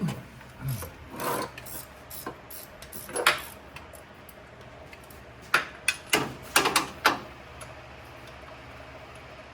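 Hand tools working on engine parts: a run of short scrapes and knocks, most of them bunched between about five and seven seconds in.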